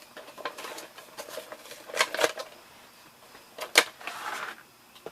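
Plastic booster packaging and miniature figures being handled: light rustling with a few sharp clicks, two about two seconds in and the loudest just before four seconds, followed by a short rustle.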